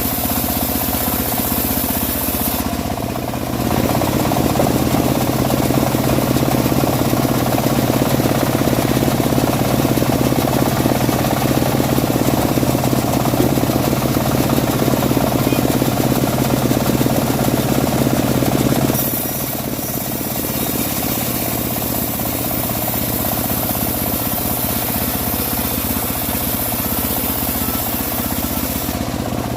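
Homemade engine-driven bandsaw mill running steadily, getting louder and fuller for a long stretch from about four seconds in to about nineteen seconds as the blade saws through dry teak, then settling back to lighter running.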